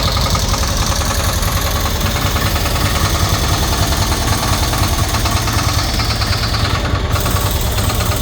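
Cushman Truckster's rebuilt 22 hp engine running steadily at idle, with the knocking sound that the owner has not yet been able to pin point.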